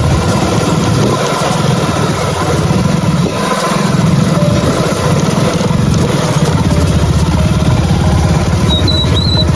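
Motorcycle engine running under way, with a brief dip in level about three and a half seconds in.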